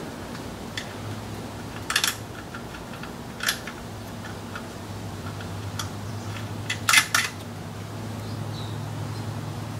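Small metal clicks and clinks from a throttle body being handled and set against the intake manifold, a few separate clicks with the loudest a quick cluster about seven seconds in. A steady low hum runs underneath.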